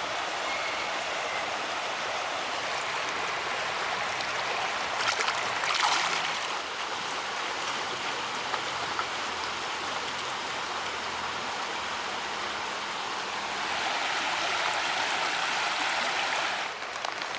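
Steady rushing, gurgling water, with a brief louder surge about five to six seconds in and a louder stretch near the end that cuts off suddenly.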